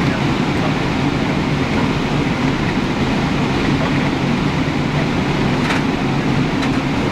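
Steady rumble and hiss of jet engines and airflow heard inside an airliner cabin.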